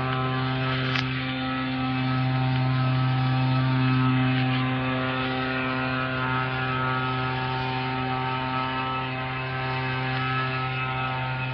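Steady electric hum with a strong low tone and many even overtones, holding level throughout, with a brief tick about a second in.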